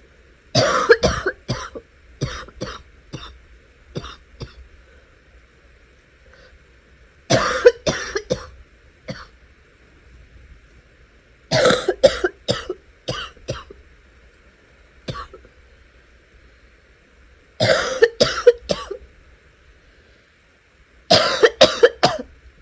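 A sick person coughing in rapid fits, five bouts a few seconds apart, each a quick run of several coughs that tails off into a few smaller ones.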